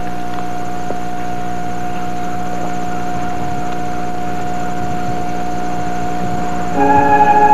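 A steady hum and hiss from an old film soundtrack, with one high tone held evenly under it. Instrumental music comes back in near the end.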